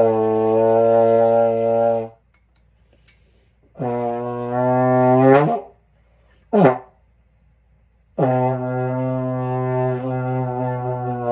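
Trombone blown in four low sustained notes on about the same pitch: a steady note about 2 s long, a second that creeps up in pitch, a brief blip that drops away, then a longer note with a slight waver.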